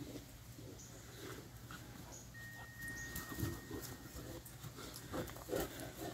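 Puppies playing and wrestling with an adult dog, giving short dog vocalisations, with the loudest ones in the second half. A thin high whine is held for about two seconds in the middle.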